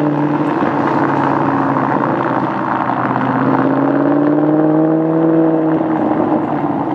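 Sports car engine pulling away under acceleration: the engine note climbs, drops briefly about two and a half seconds in as it shifts up a gear, climbs again, then fades as the car recedes near the end.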